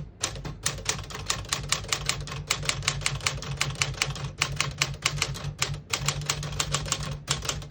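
1958 Smith-Corona Clipper manual portable typewriter being typed on at a steady brisk pace: a quick run of sharp key-and-typebar clacks, about six to eight strikes a second.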